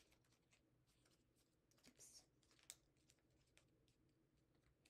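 Faint crinkling and ticking of origami paper being folded and creased by hand, with a short rustle about two seconds in; otherwise near silence.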